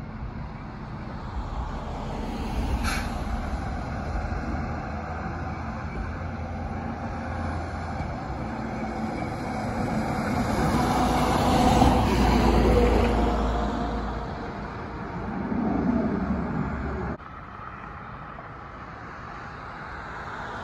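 Road traffic on a town street: engines and tyres, loudest with the low rumble of a box truck passing close near the middle. There is a short hiss about three seconds in, and the noise drops off suddenly about seventeen seconds in.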